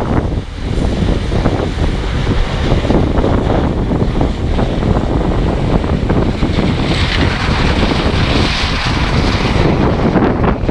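Heavy wind buffeting the microphone, over the steady running of corn-harvest machinery. A brighter hiss swells for a couple of seconds past the middle.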